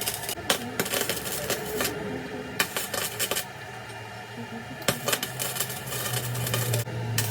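Electric arc welding on steel box section: a dense crackling in short runs with brief pauses between them, over a low hum that grows louder near the end.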